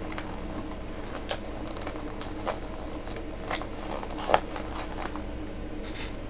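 Steady low room hum with a few faint, irregularly spaced clicks and light handling noises, the most distinct one a little past the middle.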